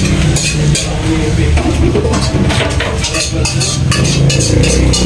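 Kitchen clatter: a run of short clinks and knocks of pots, dishes and utensils, over a low rumble.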